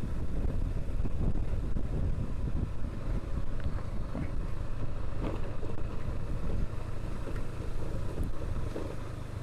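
Wind buffeting the microphone over the steady running of a Dafra Kansas 150 motorcycle's single-cylinder engine while riding.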